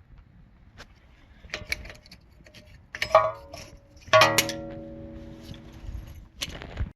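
Metal parking-brake shoes and hardware clinking as they are handled, with two sharp metallic strikes about three and four seconds in; the second rings on for about two seconds.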